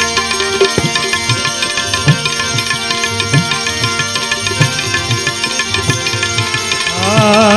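Instrumental interlude of a Gujarati devotional bhajan: tabla playing a steady rhythm under sustained held notes. A singing voice comes back in near the end.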